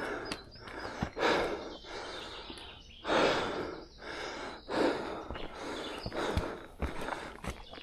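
A walker breathing hard on a steep uphill climb: heavy, rough breaths every second or two, the loudest about three seconds in, with a few faint footsteps.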